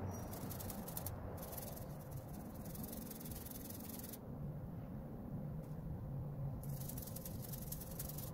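Toothbrush bristles scrubbing the circuit board of a DeWalt 18V battery pack to clean it, a continuous rubbing hiss.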